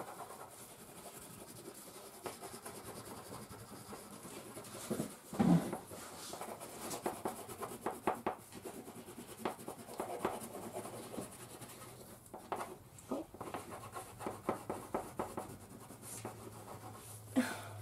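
Wax crayons scribbling on paper, many quick irregular rubbing strokes from two people colouring at once, with one brief louder sound about five and a half seconds in.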